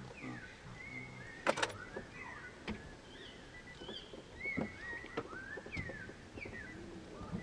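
Repeated short whistled calls, each a quick rising or falling glide, go on throughout. A few rapid bursts of sharp clicks cut across them, the loudest about one and a half seconds in.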